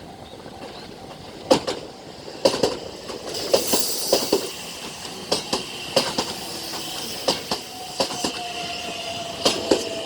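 Meitetsu 3300 series electric train passing over a level crossing, its wheels clacking over the rail joints, often in quick pairs as each bogie goes by, with a faint steady squeal from the wheels.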